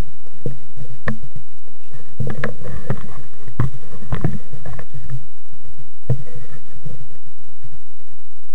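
A bike jolting down a rocky mountain trail: a low rumble of wind and vibration on the microphone, with frequent knocks and rattles as it bumps over stones. The bumps are heaviest from about two to four and a half seconds in, with another near six seconds.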